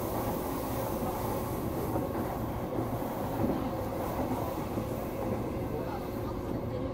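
Running sound of a JR E233-6000 series electric train, heard inside the passenger car: steady rumble of the wheels on the rails with a faint steady hum.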